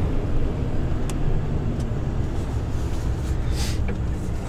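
Heavy truck's engine and road noise heard inside the cab while driving: a steady low drone, with a few faint clicks and a short hiss about three and a half seconds in.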